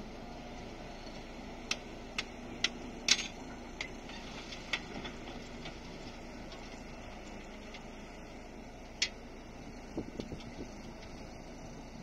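Heavy-equipment diesel engine idling steadily, with a scatter of sharp knocks from work at the dump truck's tailgate, most of them in the first half and another few near the end.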